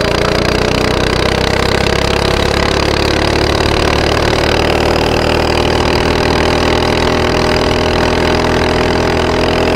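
Coleman RB100 mini bike's small single-cylinder engine running steadily at road speed. Its pitch creeps up a little over the first several seconds, then holds level.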